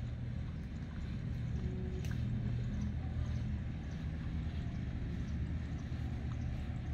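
Steady low drone of a distant engine running without a break.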